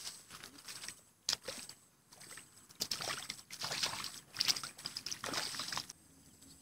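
Water splashing and sloshing at the bank in a run of short bursts that stop suddenly, with a single sharp click a little over a second in.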